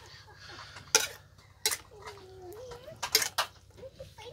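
Metal ladle clinking and scraping against the electric cooking pot as cooked meat is stirred, a few sharp clinks spaced roughly a second apart with two close together near three seconds in.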